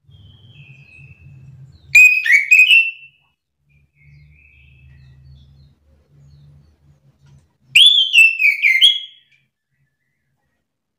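Chestnut-capped thrush (anis kembang) singing: two loud, rich whistled phrases about six seconds apart, each lasting about a second, with a few fainter whistled notes in between.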